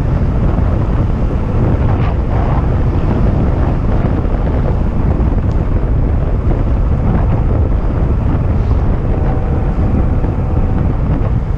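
Steady, heavy wind noise buffeting the microphone of a camera on a moving RadRover electric bike. A faint steady hum joins about nine seconds in.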